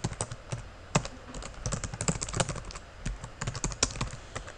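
Typing on a computer keyboard: a quick, irregular run of key clicks, with one sharper keystroke about a second in.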